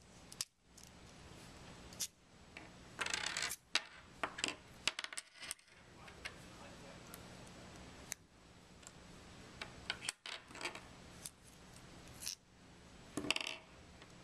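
Small metal parts of a sampler's multi-piece plunger (seal carriers and spacers) clicking and clinking as they are slid off the spindle and set down on a tabletop. There are two brief, louder rubbing slides, about three seconds in and near the end.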